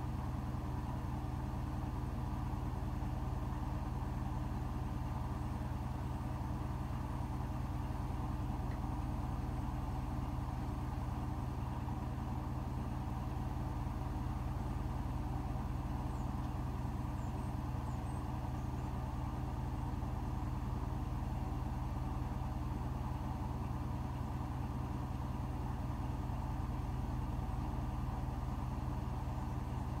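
Hotpoint WMFUG 942 front-loading washing machine running near the end of its synthetics 50° main wash, a steady low hum that does not change.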